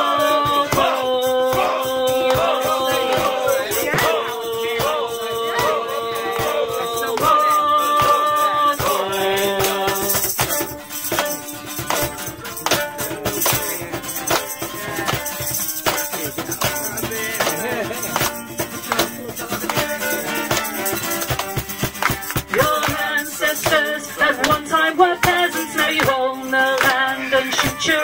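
Live folk-punk band playing an instrumental break: a fiddle holds long sustained notes through the first half, then the playing turns busier and more rhythmic, with a shaker rattling along on the beat.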